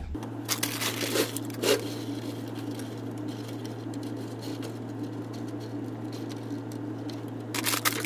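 Frozen pepper and onion pieces being handled and set down on a mesh-lined dehydrator tray: light rustling with scattered clicks, a few sharper ones about a second in and a cluster near the end, over a steady low hum.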